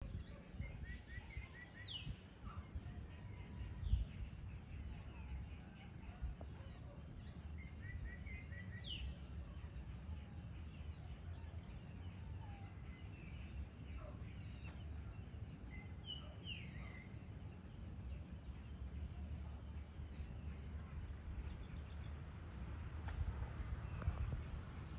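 Evening outdoor ambience: scattered short, falling bird chirps, some in quick little runs, over a steady high-pitched hum and a low steady rumble. A brief soft thump about four seconds in.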